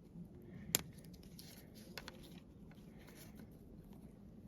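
Faint clicks and rustles of hands working a saddle gasket into a drilled hole in plastic maple sap tubing, with one sharp click just under a second in and a smaller one about two seconds in.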